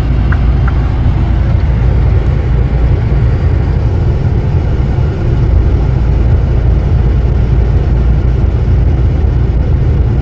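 Steady low drone of a lorry's engine and tyres at motorway speed, heard from inside the cab. A few quick, evenly spaced ticks of a turn signal stop about a second in.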